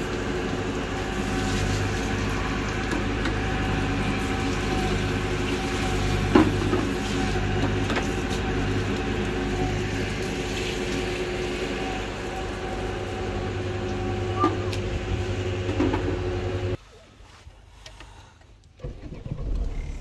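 Steady machine drone, even and unchanging, with a couple of small knocks over it; it cuts off abruptly about seventeen seconds in, leaving only faint handling noises.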